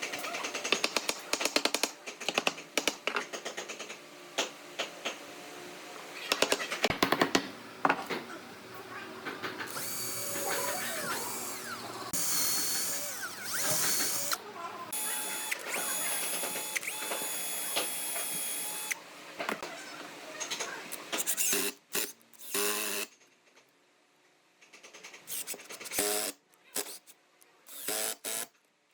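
Woodworking sounds: a string of knocks and scraping, then a power tool runs steadily for about nine seconds, followed by more knocks and a short pause.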